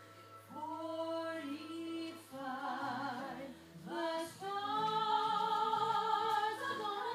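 Music with a woman singing long held notes; it gets louder about four seconds in.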